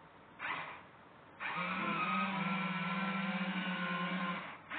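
Small electric drive motors of a wheeled robot trash can running as it drives along the floor: a brief burst of motor noise under a second in, then a steady whirring hum from about a second and a half in that stops shortly before the end.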